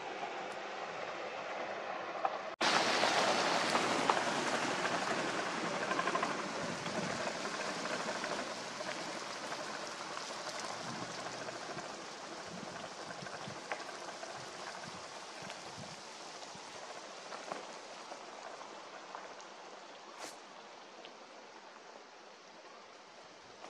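Wind rustling through the leaves of golden aspens, a dense pattering hiss. It comes in suddenly about two and a half seconds in and slowly dies away.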